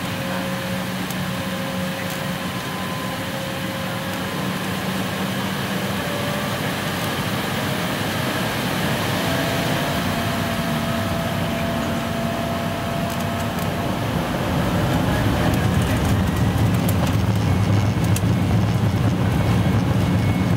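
Embraer E-190's twin GE CF34 turbofan engines heard inside the passenger cabin, a steady drone with held engine tones that grows louder as thrust builds for take-off, stepping up about 15 seconds in as one tone rises in pitch.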